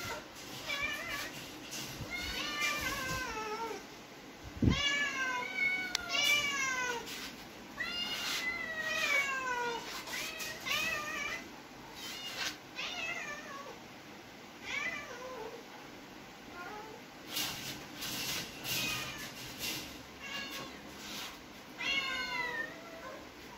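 Young tabby cat meowing over and over, drawn-out calls that fall in pitch, one every second or two, with a few sharp clicks of claws on the wire mesh screen and one low thud.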